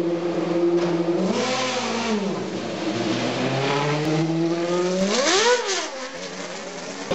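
Auto GP single-seater's V8 engine idling and blipped twice: a short rise and fall in revs about a second and a half in, then a sharper, higher rev about five seconds in before it drops back to a low idle.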